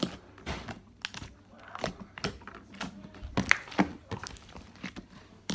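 Hands poking, pressing and folding a large batch of glossy white slime loosened with lotion, water and baby oil, making irregular clicks and pops, several a second.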